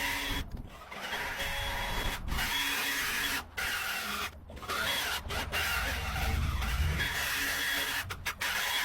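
Lawnmower engine running steadily while cutting weeds, broken several times by sudden brief drop-outs.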